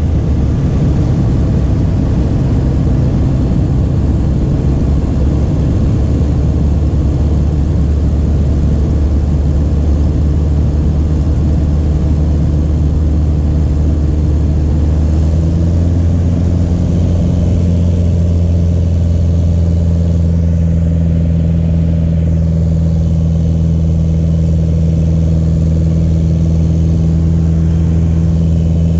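Pitts S-1S biplane's piston engine and propeller droning steadily, heard from inside its cockpit. About halfway through the pitch steps up a little and holds at the higher speed.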